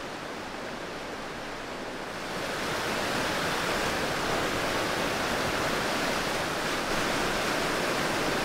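Steady rush of a small mountain creek cascading over rocks. It grows louder and brighter about two seconds in.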